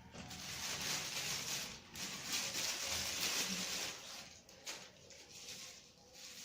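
Packaging being handled: rustling in two long stretches over the first four seconds, then softer with a few light knocks.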